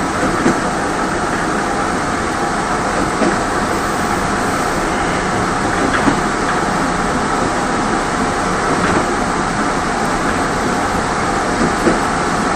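Running noise of a Mugunghwa passenger train heard from inside its last coach: a steady rumble with a soft knock from the wheels every three seconds or so.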